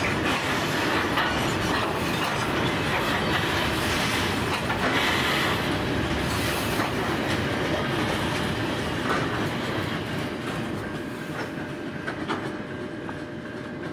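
Grain hopper wagons at the end of a freight train rolling past on the track, wheels clacking over rail joints. The sound fades steadily as the last wagon passes and moves away.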